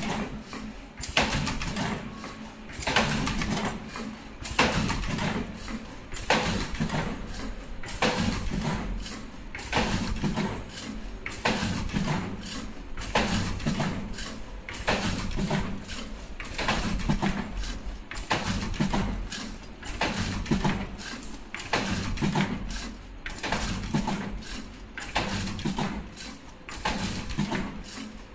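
Richpeace automatic surgical mask machine running: a fast run of mechanical clicks and clacks, with a louder clatter repeating about every one and a half to two seconds as the line cycles, over a thin steady high whine.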